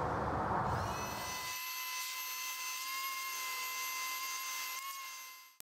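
Benchtop mini milling machine running, a steady high motor whine with a rushing noise under it for the first second and a half; it fades out just before the end.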